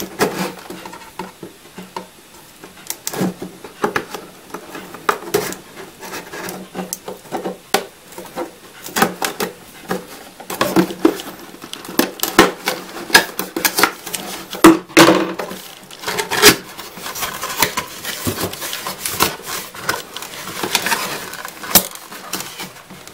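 Scissors snipping and cutting through the sealed end of a cardboard box, with irregular sharp clicks, scrapes and cardboard rustling as the box is handled. Near the end the box's flaps are pulled open.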